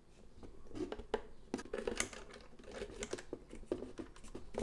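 A jigsaw being fitted by hand into an aluminium quick-release mount: irregular clicks, knocks and scraping of plastic and metal parts being handled.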